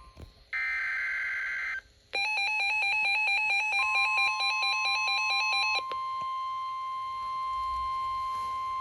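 Emergency Alert System alert tones: a short burst of digital data buzz about half a second in, then a rapid warbling electronic beep pattern from about two seconds until nearly six, overlapped from about four seconds by a steady single tone, the weather-radio alert tone that carries on to the end.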